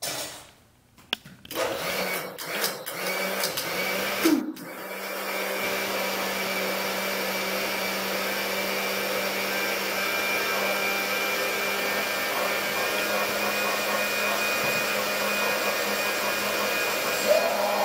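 Countertop blender puréeing guacamole thinned with water into a sauce. It starts and stops unevenly over the first four seconds or so, then runs steadily with a constant motor hum.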